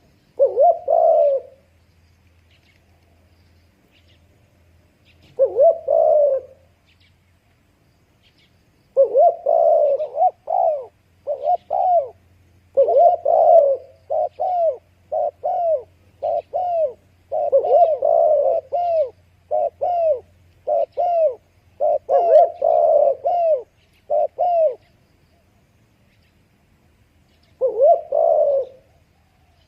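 Dove cooing: a single coo phrase, another a few seconds later, then a long run of quick repeated coos lasting about fifteen seconds, and one last phrase near the end.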